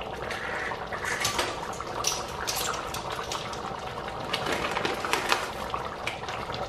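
A pot of okra stew boiling, with thick bubbles popping irregularly over a steady bubbling.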